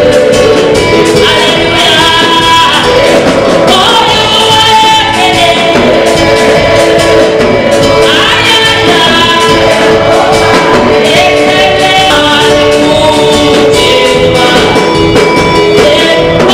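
Live gospel praise singing: a woman leads on a handheld microphone while a group of backing singers harmonise, amplified over instrumental accompaniment, loud and continuous.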